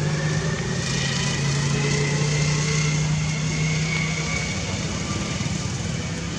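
A small engine running steadily, a constant low hum with a faint whine above it.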